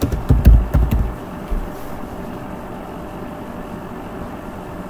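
Computer keyboard keystrokes: about eight dull knocks in quick succession in the first second and a half as a search query is typed and entered, then only a steady low background hum.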